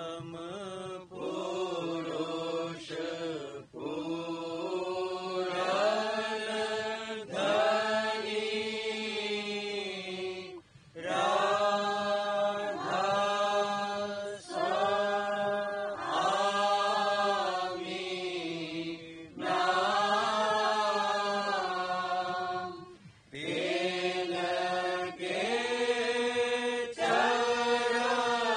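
Devotional chanting of a Radhasoami satsang, sung in held phrases of a second or two each with short breaks between them.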